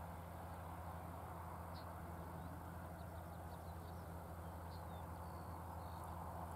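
John Deere 7920 tractor's six-cylinder diesel engine running steadily, faint and distant, as it pulls a trailed field sprayer, growing slightly louder near the end. Small birds chirp now and then.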